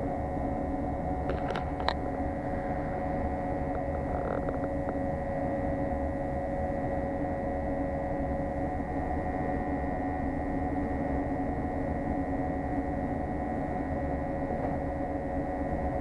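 Bradford White commercial gas water heater burning at high fire: a steady rushing hum with several steady tones, and a couple of light clicks about a second and a half in.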